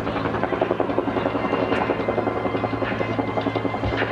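Helicopter rotor beating in a fast, steady rhythm over a constant low engine hum.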